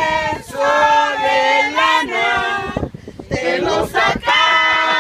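A small group of women singing a song together, unaccompanied, with long held notes and a short break about three seconds in.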